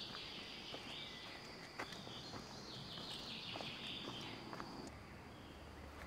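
Faint forest ambience: birds singing in short, falling phrases over a steady high-pitched drone that fades about five seconds in, with a few light clicks.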